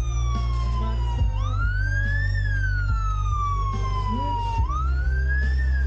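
Police motorcycle siren wailing: the pitch rises quickly and falls more slowly, twice, over a steady low hum.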